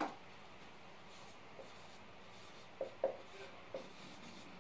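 Dry-erase marker writing on a whiteboard: a few short squeaky strokes in the second half as letters are formed. A sharp click comes right at the start.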